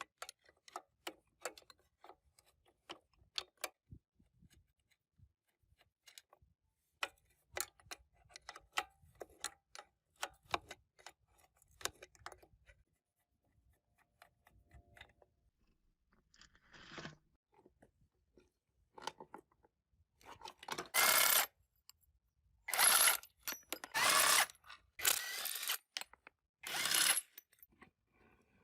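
Workshop tool sounds: scattered light metallic clicks and taps of hand tools and parts, then, about twenty seconds in, five short bursts of a power tool, each under a second long.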